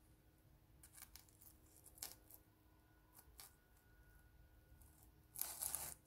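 Near silence, broken by faint clicks and rustles as a hand handles a stretched silk canvas. Near the end there is a louder, scratchy rustle of about half a second.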